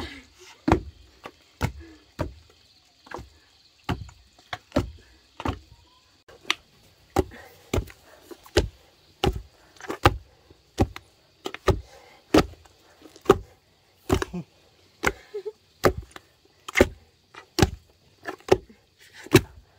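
Repeated heavy wooden strikes, each a sharp knock with a low thud, coming fairly steadily at about one and a half a second, like a tool chopping or pounding on wood.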